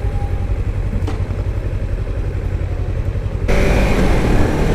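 Sport motorcycle engine running steadily at low speed. About three and a half seconds in it switches abruptly to louder riding, with wind rushing across the helmet-mounted microphone over the engine hum.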